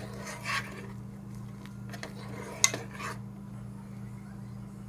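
Metal spoon stirring and scraping in a small nonstick saucepan of thickening ragi flour and water, with one sharp clink of spoon on pan about two and a half seconds in. A steady low hum runs underneath.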